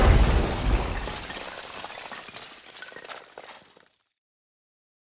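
Tail of an explosion sound effect with shattering, clinking debris, dying away and cutting to silence about four seconds in.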